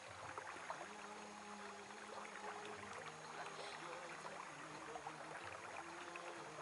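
Small creek's water babbling steadily, with fine trickling ticks throughout.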